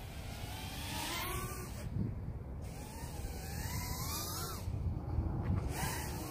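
KingKong/LDARC 110GT mini FPV racing quadcopter's brushless motors whining, the pitch rising and falling in three swells as the throttle changes, over a steady low rumble.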